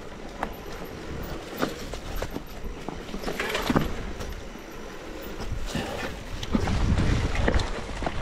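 Mountain bike riding over a rough trail: tyre noise with scattered knocks and rattles from the bike, and some wind on the microphone.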